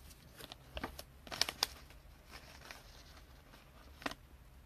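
Trading cards being handled and flipped through: faint rustles and a few short clicks of card stock, loudest in a small cluster about one and a half seconds in and once more near the end.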